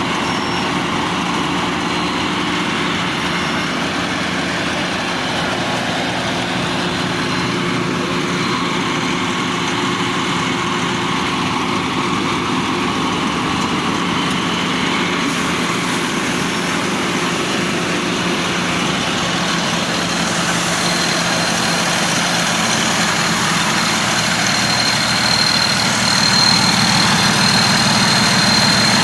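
Combine harvester's diesel engine running steadily, growing slightly louder near the end as a thin high whine joins in.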